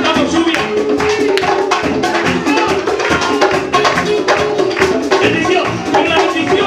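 Upbeat praise music with a steady percussive beat under sustained melody lines.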